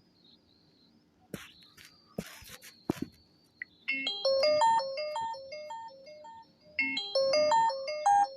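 Sony Xperia L4 ringtone playing from the phone's speaker: a melody of quick electronic notes that starts about four seconds in and begins again about three seconds later, after a few soft clicks.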